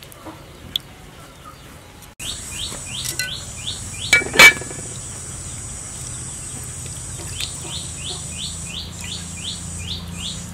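A small bird calling in rapid runs of short rising chirps, about three a second, over a steady high insect drone. There is one loud, short clink about four seconds in.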